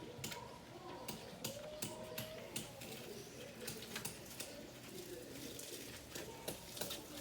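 Irregular light taps or clicks, two or three a second, over faint distant voices.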